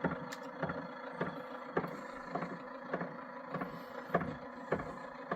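Bambu Lab P1P 3D printer with its AMS running during a filament load: a steady fan hum with a light regular click a little under twice a second.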